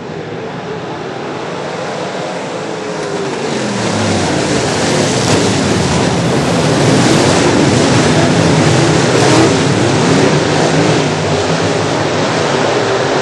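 A pack of dirt-track race cars' engines at racing throttle, several pitches rising and falling as they go through the corners. The engines grow louder for about the first seven seconds as the pack closes in, then hold.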